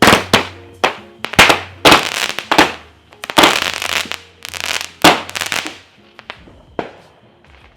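Firecrackers going off in a rapid, irregular string of loud sharp bangs, some overlapping, for about six seconds before thinning out, with faint music underneath.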